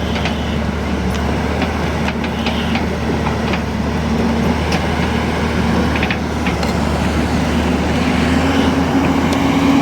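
JCB 205 excavator's diesel engine running steadily under working load, its pitch rising slightly about eight seconds in, with scattered short knocks.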